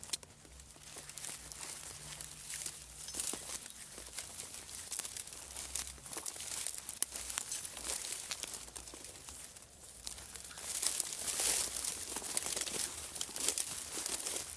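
Continuous dense rustling and crackling of dry foliage, with a thick run of sharp crackles from about eleven seconds in.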